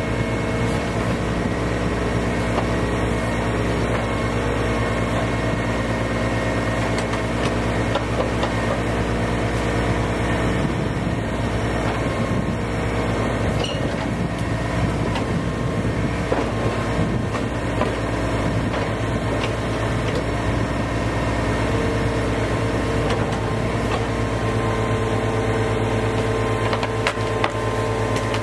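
Engine-driven stump-removal machinery running steadily at a constant speed, with a steady drone. A higher whine joins in about two-thirds of the way through.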